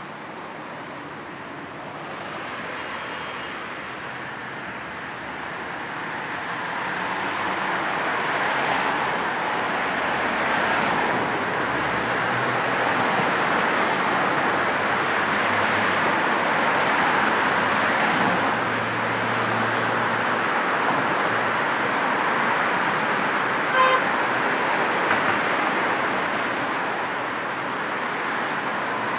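City road traffic: a steady wash of tyre and engine noise that swells as vehicles pass and eases off a little later. One brief car horn toot sounds late on.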